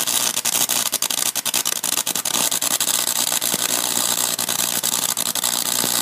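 High-voltage arc from a microwave oven transformer burning into an apple: a loud, continuous buzzing crackle over a steady electrical hum.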